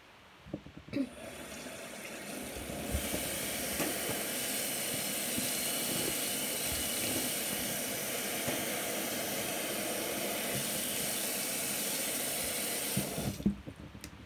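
Bathroom sink tap running steadily into the basin, turned on about a second in and coming up to full flow over the next two seconds, then shut off shortly before the end.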